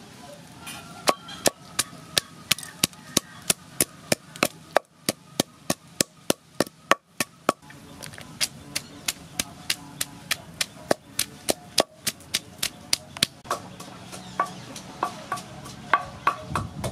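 Wooden pestle pounding chilies and garlic in a wooden mortar: sharp knocks about three a second, with a brief pause about halfway before the pounding resumes.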